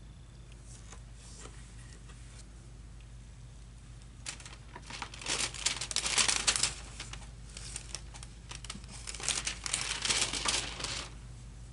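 Plastic crinkling and rustling in two spells of a few seconds each, the first loudest about six seconds in, the second broken into quick bursts before stopping near the end.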